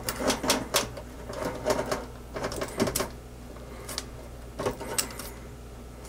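Stripped electrical wires being handled and twisted together by hand: irregular small clicks and rustles of wire and insulation, busiest in the first few seconds and thinning out toward the end.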